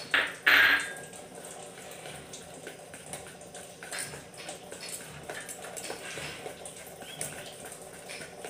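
A spoon stirring thick besan (gram-flour) batter in a stainless-steel pot, with soft scraping and light clinks against the metal. About half a second in, two short loud splashes as a little water is poured into the batter from a small glass bowl.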